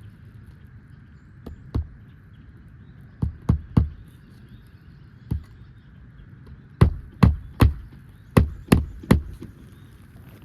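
Hammer driving roofing nails into an asphalt shingle with short, low strokes under the lifted course above: about a dozen sharp strikes in small groups, the loudest run of six near the end.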